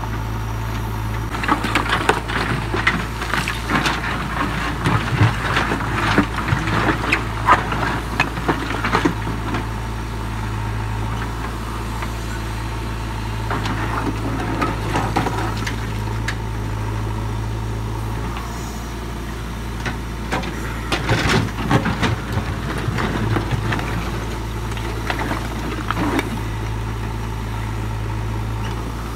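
JCB 3DX backhoe loader's diesel engine running steadily while the backhoe bucket scrapes and knocks through broken rock. Two long spells of clattering stone, the first from about two to nine seconds in and the second from about twenty-one to twenty-six seconds in, with a few lighter knocks in between.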